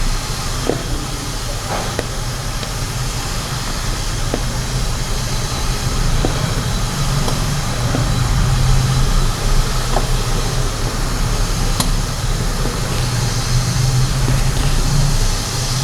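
Steady low rumble from the stove and steamer, with scattered light clicks and clinks as wheat-flour dough balls are set onto metal idli plates.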